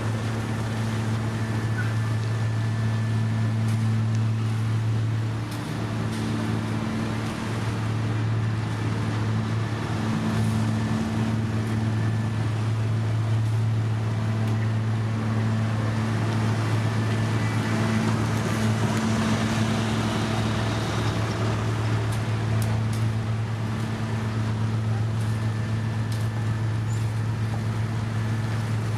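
Diesel engine of heavy road-construction machinery running steadily, a low, even hum.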